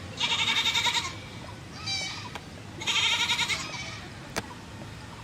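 An animal calling: two long, wavering calls and a shorter one between them, with a single sharp click near the end.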